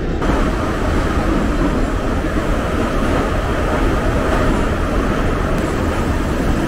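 Metro train running through a tunnel, heard from inside the carriage: a loud, steady running noise of wheels and car with a deep rumble.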